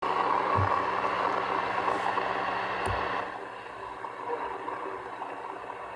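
CB radio receiver hissing with static on the channel, louder for about the first three seconds and then dropping to a lower hiss, with two brief low thumps.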